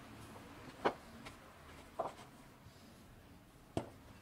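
A wooden rolling pin rolling a stack of dumpling wrappers thin on a bamboo cutting board, with three short knocks: about a second in, about two seconds in, and near the end.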